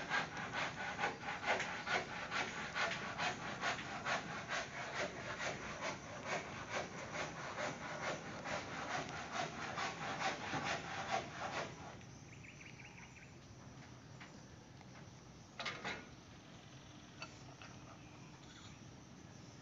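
Handsaw cutting timber: steady back-and-forth strokes, about two to three a second, that stop about twelve seconds in. A short knock follows a few seconds later.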